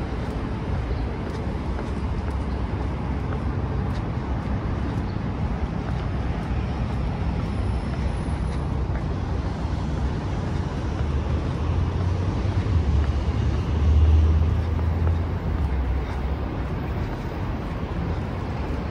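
Steady low rumble of city traffic, swelling to its loudest around fourteen seconds in as a vehicle passes.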